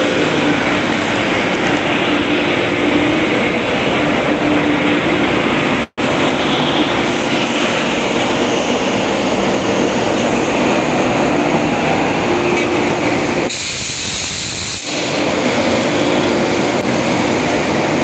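Oxygen plant machinery running: a loud, continuous mechanical din from belt-driven piston air compressors and the oxygen generator. It cuts out for an instant about six seconds in and drops lower for about a second around fourteen seconds.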